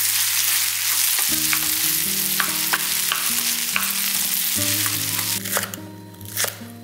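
Food sizzling as it fries in hot oil, a dense hiss that starts abruptly and fades out about five and a half seconds in, with a few light clicks, over soft background music.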